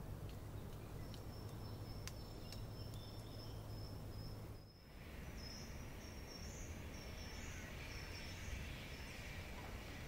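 Forest ambience recording: a steady high trill with a few faint clicks, then, after a brief dip in level about halfway, a run of short high chirps over a soft hiss.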